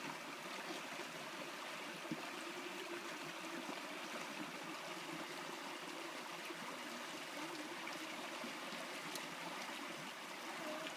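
Running water of a small stream, flowing steadily.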